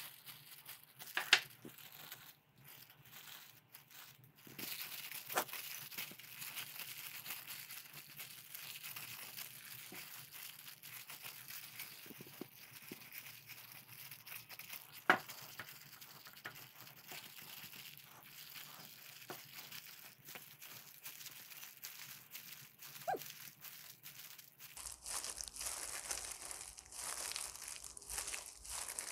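Thin disposable plastic gloves crinkling as rice is mixed and pressed by hand in a bowl, with a few sharp clicks, the loudest about halfway through.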